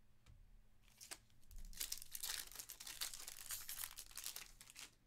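Foil wrapper of a baseball card pack being torn open and crinkled by hand: a few sharp crackles about a second in, then about three seconds of dense tearing and crinkling.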